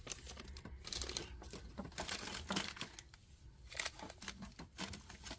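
Small plastic bead bags crinkling and rustling as they are handled and sorted through, in short, scattered crackles.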